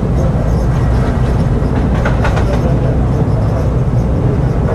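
Tram running along the track: a steady low rumble of wheels on rails, with a short cluster of sharp clicks about halfway through.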